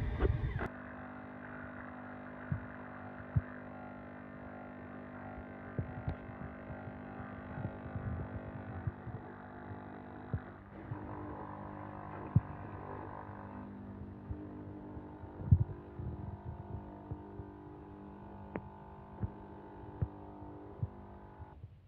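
Nespresso Vertuo Plus coffee machine running its first-use cleaning cycle: a steady pump hum with scattered clicks. It starts half a second in, changes tone a little past the middle, and cuts off just before the end.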